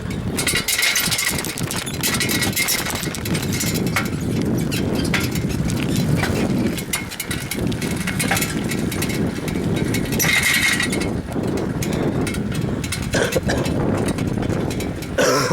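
Riding a bicycle with a handheld camera: wind buffeting the microphone over a steady rattling and clicking from the bike.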